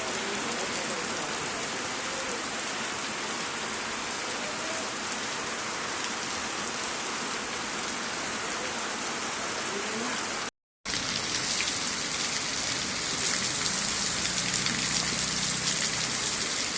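Heavy monsoon rain falling steadily. A little past the middle the sound drops out for a moment, and after that the rain is louder and hissier.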